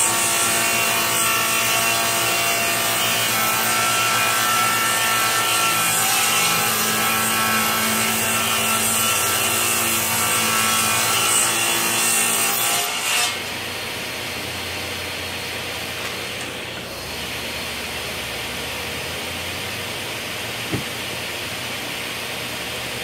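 Delta table saw ripping a long board: a steady cut over the motor's whine with several held tones, stopping abruptly about 13 seconds in. After that a quieter, steady rushing noise goes on, with a single click near 21 seconds.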